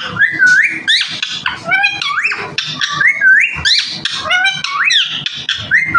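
Green Indian ringneck parrot calling in a rapid, unbroken run of short squawks and whistles that swoop up and down in pitch.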